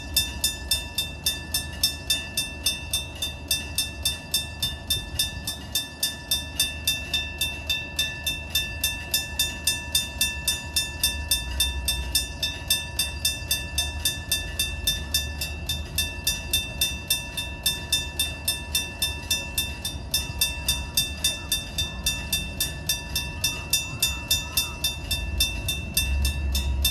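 Japanese railroad crossing warning bell ringing in a steady, even rhythm of about two strikes a second, over the low rumble of a train, which grows louder near the end.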